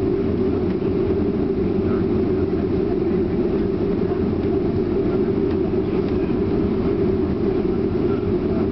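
Steady low rumble inside the cabin of a Boeing 737 taxiing on the ground, its jet engines running at low power.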